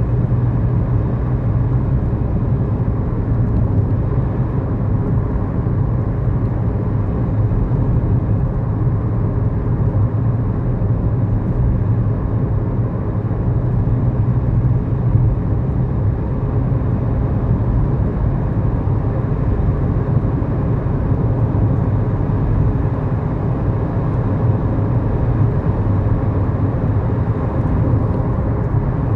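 In-cabin engine and road noise of a 2011 Kia Morning with a 999 cc four-cylinder engine, a steady low drone while driving at an even pace.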